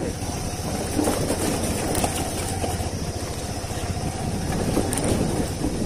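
Motorcycle engine running steadily while riding over a rough, unpaved dirt road, with a low rumble of engine and road noise.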